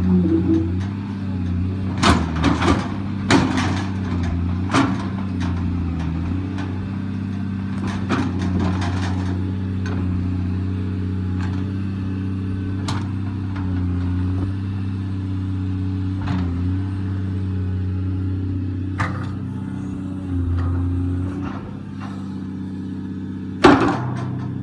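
Volvo excavator's diesel engine running at a steady pitch, with sharp knocks and clanks every few seconds, the loudest near the end.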